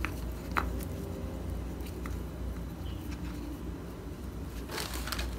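Plastic and card packaging of a Hoya UX lens filter being handled and opened: a few separate small clicks, then a short crinkling rustle near the end, over a low steady hum.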